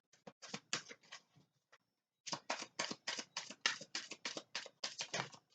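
A deck of oracle cards being shuffled by hand: a quick run of short card slaps, about five a second, with a brief pause about two seconds in.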